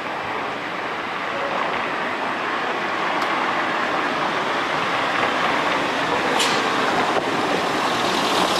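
Street traffic noise from a car driving up and passing close by, growing steadily louder, then cut off abruptly at the end.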